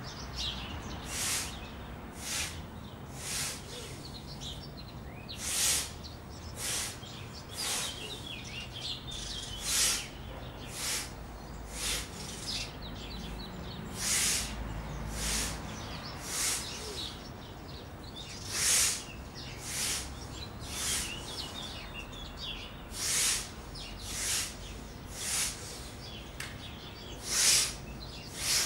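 Sharp, hissing breaths pushed out through the mouth or nose about once a second, unevenly spaced, driven by abdominal contractions. Faint bird chirps sound in the background.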